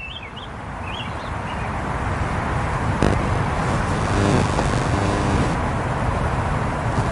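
City street traffic: a steady wash of passing cars and scooters, their engines and tyres, growing louder over the first two seconds, with a pitched engine note passing about four seconds in. A few bird chirps sound in the first second and a half, and a sharp click comes about three seconds in.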